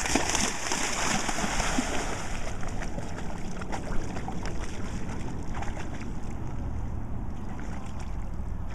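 A dog running and splashing through shallow water, the splashing loudest in the first two seconds, then quieter sloshing as it wades.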